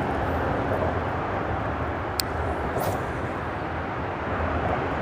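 Steady rumble of freeway traffic on the bridge overhead, mixed with the running water of the stream, with two short clicks about two and three seconds in.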